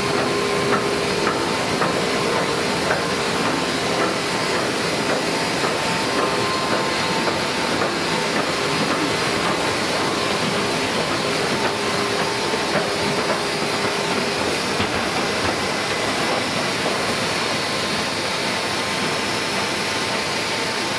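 Miller TP-104 sheetfed offset printing press running: a steady dense mechanical clatter and hiss, with light regular ticking and a faint steady hum.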